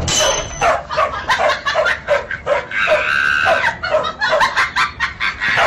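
A dog barking in a rapid run of short, high yaps, about four a second, with a longer drawn-out higher note near the middle.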